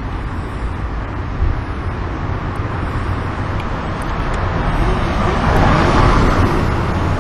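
Road traffic: a steady hiss of passing vehicles, with one drawing nearer and loudest about six seconds in.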